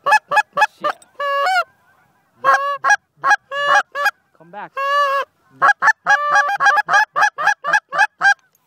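Goose call blown in a string of loud honks and clucks, many breaking upward in pitch, with a fast run of about four a second in the second half, imitating Canada geese to draw a passing flock in.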